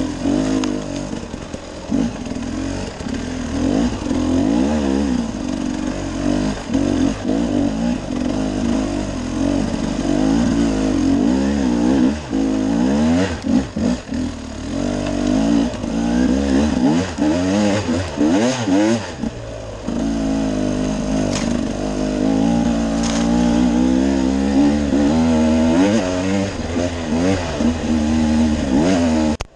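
Dirt bike engine revving up and down continuously as it is ridden along a rough trail, the pitch rising and falling with each blip of the throttle. The engine briefly drops off about two-thirds of the way through, then picks up again.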